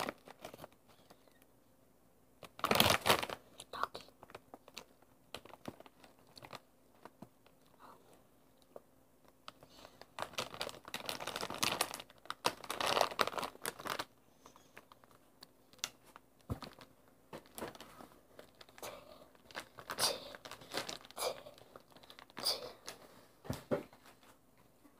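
Foil snack-chip bags crinkling as they are handled and a hand rummages in a Takis Fuego bag. The crinkling comes in bursts: one about three seconds in, a longer stretch from about ten to fourteen seconds, and more around twenty to twenty-three seconds.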